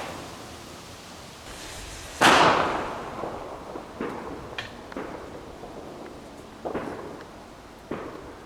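Fireworks going off: one loud bang about two seconds in that echoes away over a second or so, followed by several fainter pops and bangs.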